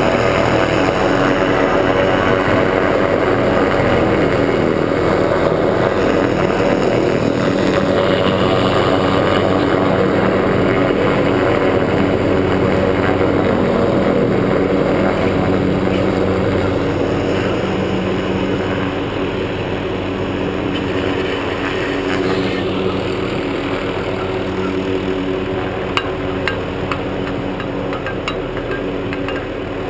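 Small helicopter's engine and rotor running close by as it flies a sock line for power-line stringing: a steady drone that eases off a little in the second half. A few sharp clicks come near the end.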